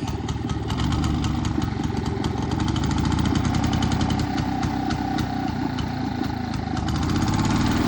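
Engine of a 1947 Frazer walk-behind rototiller running steadily at idle, with small swells in loudness. It is loading up a little at idle, which the owner puts down to a mixture that needs leaning out.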